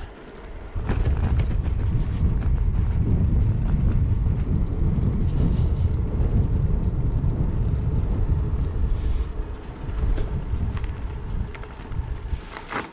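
Wind buffeting the microphone as a bicycle freewheels fast downhill, a loud uneven low rumble that builds about a second in and fades near the end, with light clicks of bike rattle.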